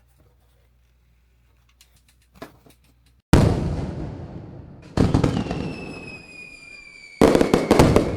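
Fireworks: three sudden loud bursts, the first about three seconds in and the others roughly two seconds apart, each followed by crackling that fades, with faint falling whistles above.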